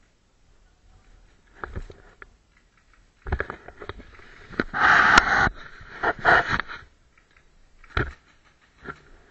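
Close rustling and scraping against the body-worn camera as its wearer shifts behind cover, with several sharp clicks; it is loudest about three to seven seconds in, and one more click comes near the end.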